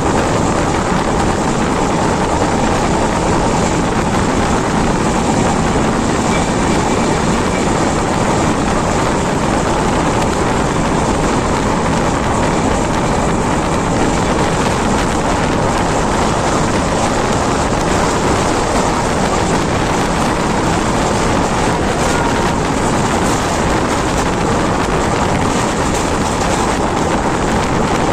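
Express passenger train running at speed, heard at an open coach window: a loud, steady rush of running noise from the wheels on the rails and the air going past, with no let-up.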